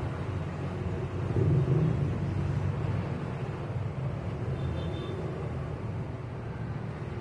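Diesel engine of a compact backhoe (mini excavator) running steadily with a low rumble, swelling briefly about a second and a half in.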